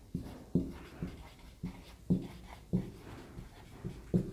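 Marker pen writing on a whiteboard: a run of short, irregular strokes, about three a second.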